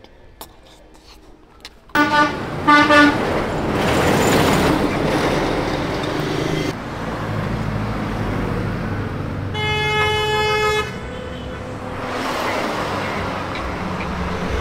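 Two short vehicle-horn toots about two seconds in, followed by a vehicle passing. About ten seconds in comes a longer horn blast of about a second, and traffic passes again near the end.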